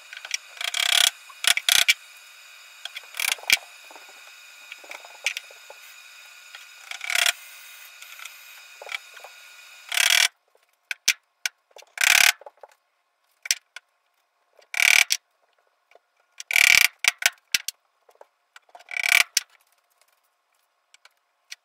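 Short scraping strokes of a hand tool working on the wooden joists, a second or two apart, over a faint steady hum that stops about ten seconds in.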